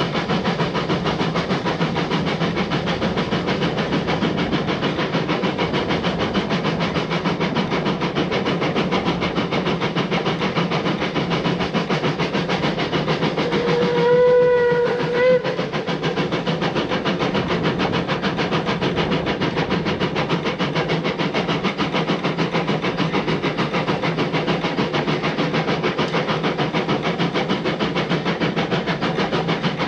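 Narrow-gauge steam train running steadily with a fast, even pulse. About halfway through, the locomotive's steam whistle sounds one blast of just over a second, followed at once by a short toot.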